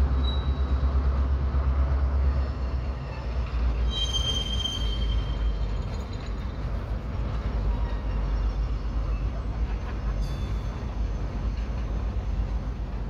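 Freight cars of a slow-moving train rolling past with a steady low rumble. A wheel squeals for about a second, about four seconds in, and more faintly again near the end.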